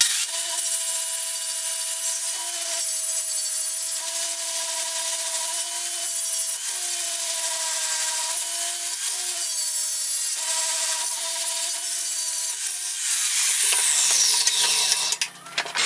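A 7-inch angle grinder running steadily, its motor whine over the hiss of the disc grinding a collar off a tool-steel drill-rod bar. The pitch wavers slightly as the disc bears into the steel, and a high falling tone comes near the end.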